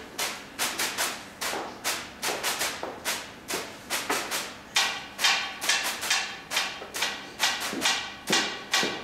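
Rhythmic percussion played on canteen tableware: a steady beat of sharp scraping and tapping strokes, about two or three a second. From about five seconds in, struck metal serving platters and cloche lids join with a metallic ring.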